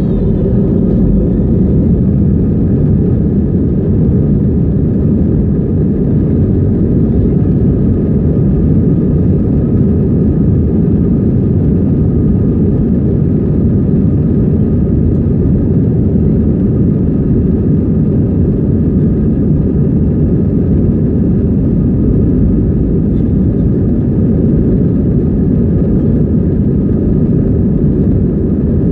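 Cabin noise inside an Airbus A320 moving on the ground: a steady low rumble from the running jet engines and the rolling airframe, with a few faint steady whining tones above it. The loudness stays even, with no rise.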